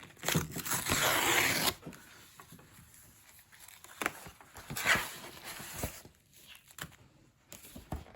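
Mailing package being ripped open by its pull-tab tear strip: a tearing rasp of about a second and a half near the start, then handling clicks and rustling, and a shorter rip about five seconds in.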